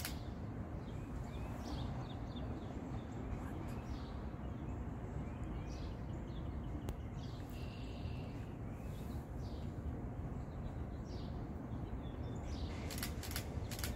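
Steady low outdoor background rumble with small birds chirping faintly now and then, and a few sharp clicks about a second before the end.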